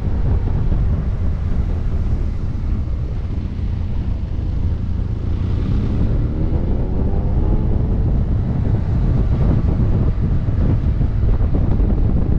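Wind buffeting the microphone on a moving motorcycle, over the BMW F800GT's parallel-twin engine, whose note climbs in pitch about five seconds in as the bike accelerates through a bend.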